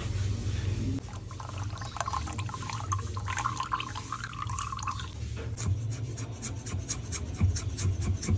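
Oil from an opened tin of sardines pouring in a thin trickle into a ceramic cup. Then a kitchen knife slicing garlic cloves on a wooden board in quick, even cuts, three or four a second.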